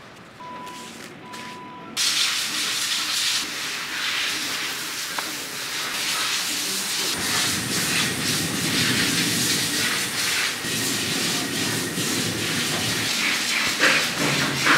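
Vertical band saw running and cutting through a stack of sheet material, a steady hissing whir that starts suddenly about two seconds in and grows fuller about halfway through. A few knocks near the end.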